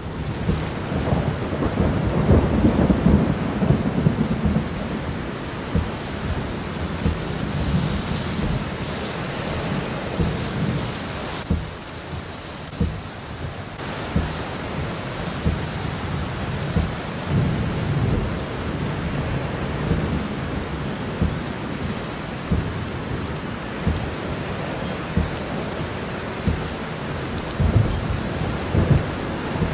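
Very heavy thunderstorm rain hitting a car's roof and windshield, heard from inside the cabin while driving: a dense, steady hiss with many dull thumps of drops. It is loudest in the first few seconds.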